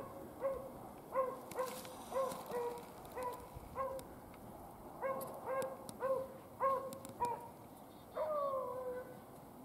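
Beagle baying: a string of short barks, about two a second with a brief pause partway through, then one drawn-out bay that falls in pitch near the end.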